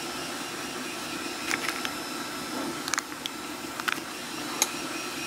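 A handful of small metallic clicks and taps from a lock pick and tension tool working in the keyway of a CISA pin-tumbler rim cylinder, spread over a few seconds. A steady low background hum runs underneath.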